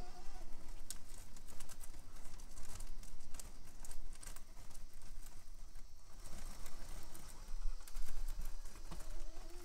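Traxxas TRX-4M micro RC crawler climbing rough steps: a patter of small clicks and scrapes from its tires on the textured surface. A faint, wavering whine from its motor and gears is heard at the start and again near the end.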